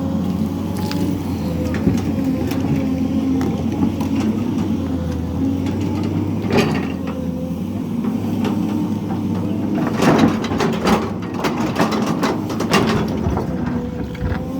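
SANY hydraulic excavator's diesel engine running steadily under digging load, with sharp metallic knocks and clanks from the working machine, one about halfway through and a cluster of them later on.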